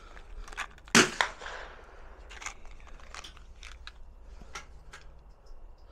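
A single sharp gunshot about a second in, with a short echo, followed by light scattered clicks of cartridges and a small plastic ammo box being handled.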